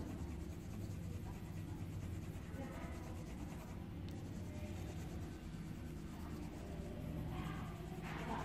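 Coloured pencil scratching across paper as a drawing is coloured in, in soft patches of short strokes that grow stronger around three seconds in and near the end, over a steady low hum.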